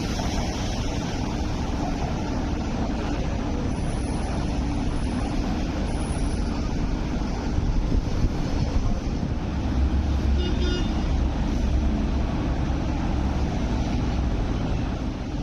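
Steady outdoor city background noise, a continuous traffic-like rumble with no single event standing out. About ten seconds in there is one brief high-pitched chirp.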